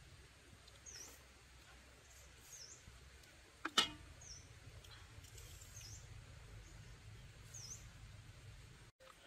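Forest ambience: a bird repeating a short high down-and-up chirp every second and a half or so over a low steady rumble. A single sharp click or tap, the loudest sound, comes a little under four seconds in.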